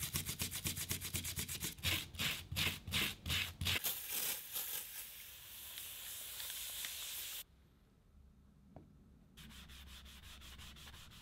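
A rubber gasket frame being scrubbed by hand in a metal tray of liquid, in quick back-and-forth strokes of about five a second that slow near the middle. A steady hiss follows. Near the end comes a softer, steady rubbing as a cloth wipes the rubber.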